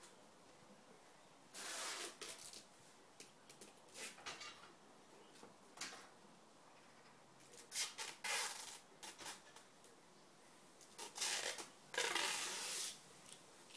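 A cat's claws scraping and scrabbling on tree bark in several short scratchy bursts, the loudest ones about eight seconds in and again near the end.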